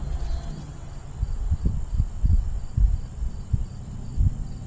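Gusty wind buffeting the microphone in uneven low thumps, with crickets chirping steadily underneath at about three chirps a second.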